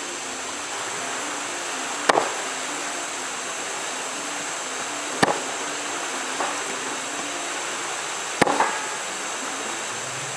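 Machete blade striking bamboo: four sharp chops, about two, five, six and a half and eight and a half seconds in, over a steady background hiss.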